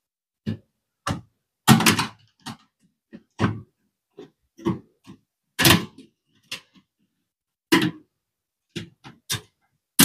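Screwdriver and hands working at a microwave oven's control panel as its retaining screw is taken out: a string of irregular short clicks and knocks, about fifteen in all, with brief silences between them.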